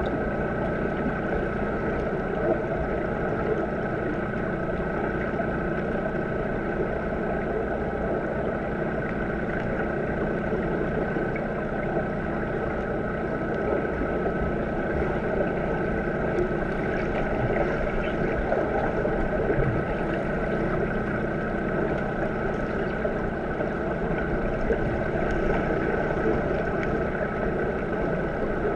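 Underwater swimming-pool sound: a steady, muffled churning of water stirred by finning players, with a constant hum running under it.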